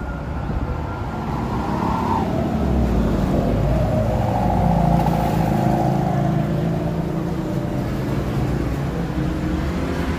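Street traffic: a motor vehicle engine passes close by, growing louder in the middle and then easing off, over a steady low rumble.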